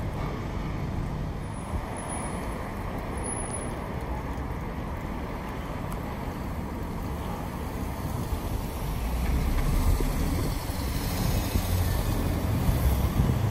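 Steady city street traffic noise, with a heavier low rumble swelling from about nine seconds in.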